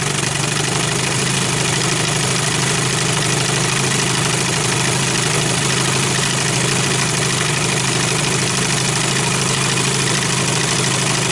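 Johnson/Evinrude two-stroke outboard motor idling steadily without sneezing or misfiring. Its carburettor mixture needle has been leaned to just short of sneezing, and the motor holds a clean idle.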